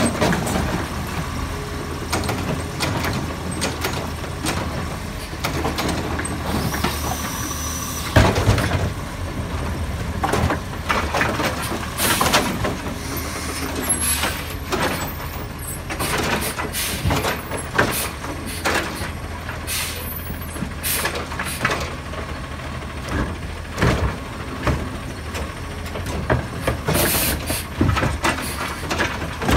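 Automated side-loader recycling truck at work: its diesel engine runs steadily while the hydraulic arm dumps and sets down carts with repeated clunks and bangs, with a loud knock about eight seconds in. An air hiss, typical of air brakes, sounds just before that knock.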